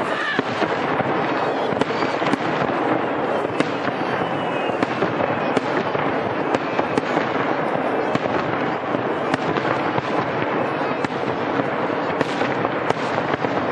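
Fireworks crackling densely and without a break: a rapid, unbroken stream of sharp pops with scattered louder bangs, starting abruptly.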